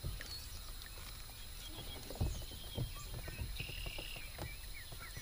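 Faint handling sounds of a largemouth bass being hooked onto a hand-held digital scale and lifted: a few scattered soft knocks and taps, the loudest about two seconds in.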